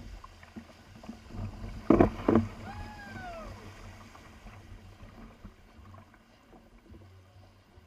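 Two sharp knocks on a kayak, less than half a second apart, with a low steady rumble underneath. A brief call that rises and falls follows just after the knocks.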